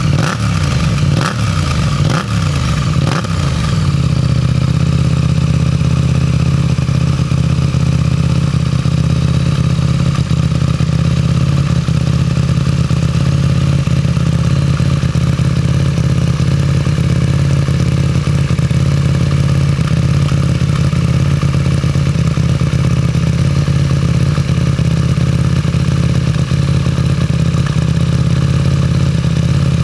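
KTM RC 8C's 889 cc parallel-twin engine through an Akrapovič full titanium exhaust, blipped a few times in quick succession in the first few seconds, then settling to a steady idle.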